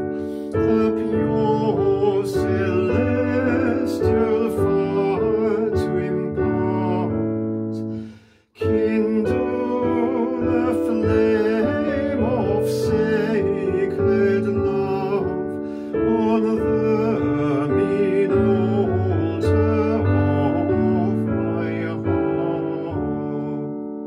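A hymn verse played on piano, with singing voices carrying the melody over the held chords. There is a short break between phrases about eight seconds in, and the music dies away at the end of the verse.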